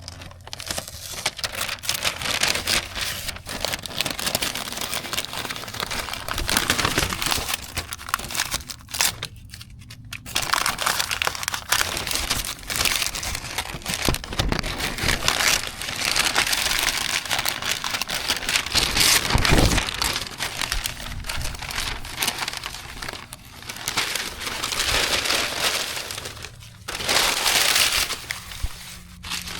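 Irregular crumpling and crinkling of sheet material being handled and gathered up, stopping briefly about nine seconds in and twice near the end.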